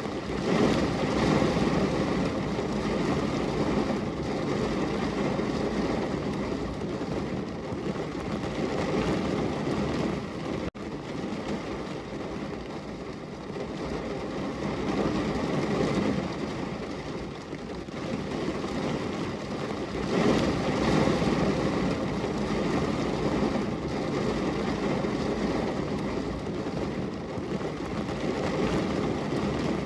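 Heavy rain pouring steadily on a window, an even rushing hiss that swells and eases every several seconds, with a momentary dip about eleven seconds in.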